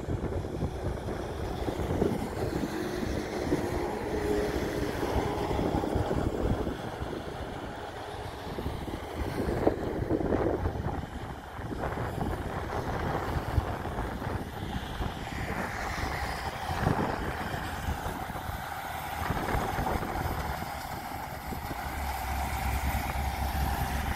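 Heavy trucks running at speed on the road: a steady engine and tyre rumble that swells and eases as a tanker truck overtakes another truck, with a few short knocks.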